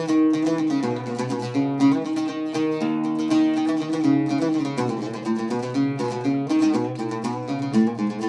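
Background music led by a plucked string instrument, quickly picked notes over a steady lower line.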